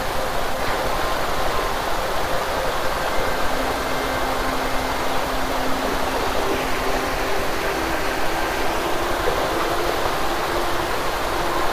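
Stream water rushing steadily over rocks, with faint steady hum tones underneath.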